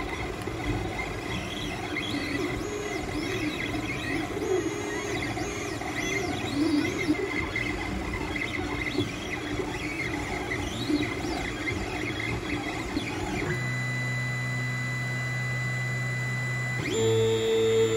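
Ender 3 3D printer's stepper motors driving a pen plotter, a busy mix of shifting high whines and squeals as the carriage darts about. About three-quarters of the way in this gives way to steady held electronic tones, joined near the end by a louder chord of held notes.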